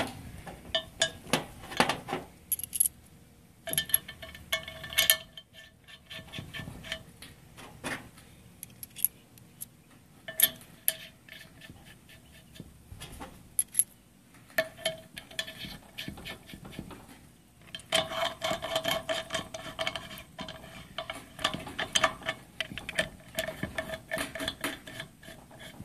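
Steel fittings and a hand tool clinking and clicking against a Ford 6.0L diesel's cast-iron high-pressure oil rail as nipple cups are seated and tightened. The clicks come in scattered bursts with a short metallic ring, thickening into a dense run of rapid clicks for the last several seconds.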